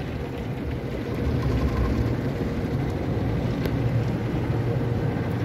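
Tommy tunnel car wash equipment heard from inside the car's cabin: a steady rumble and hiss as water and foam spray onto the windshield.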